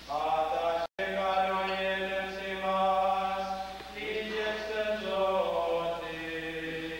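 A slow chant sung in long held notes, moving from one note to the next every second or two. The sound cuts out completely for an instant about a second in.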